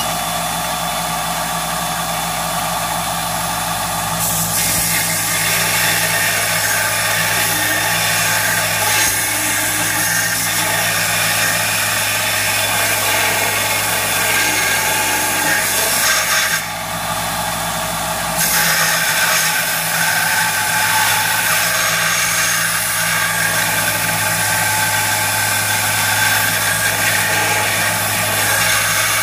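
Bench grinder motor running with a steady hum while a steel workpiece is pressed against the grinding wheel, giving a continuous hiss of metal being ground away, with a brief dip about two-thirds of the way through.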